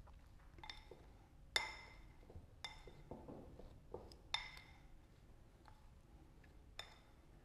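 Spoon clinking against a bowl while spice masala stuffing is mixed: about six separate ringing clinks with quiet between them, the loudest about a second and a half in and again around four and a half seconds in.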